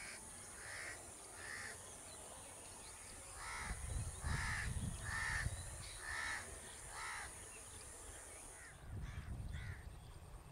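A bird calling repeatedly in short, harsh caws, about nine in a row that are loudest in the middle, then two more near the end.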